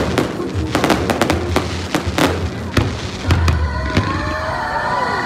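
Fireworks display: shells bursting and banging in quick succession, one after another. From about three and a half seconds in, whistles glide up and down among the bangs.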